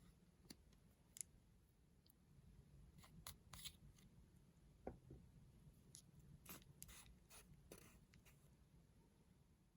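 Near silence: faint room tone with scattered soft clicks and crackles, most of them between about three and eight seconds in.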